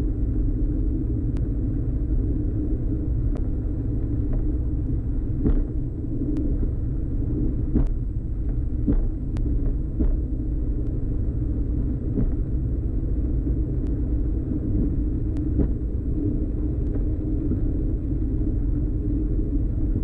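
Steady low rumble of a Diamond DA42's twin turbo-diesel engines at taxi power, heard from inside the cabin, with occasional faint clicks.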